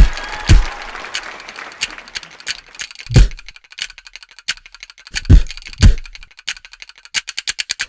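Sparse percussion between songs: four deep drum hits that fall in pitch, over sharp clicking taps that grow quicker and denser near the end.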